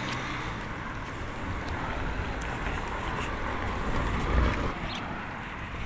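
City street traffic noise: a steady hiss with a low rumble that builds to its loudest about four seconds in, then drops away.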